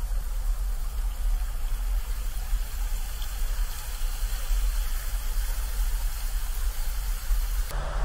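Wind buffeting a handheld camera's microphone: a steady, fluttering low rumble over outdoor ambience. The background changes abruptly near the end.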